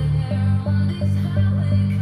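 Background music: an electronic track with a heavy bass line and a melody over it.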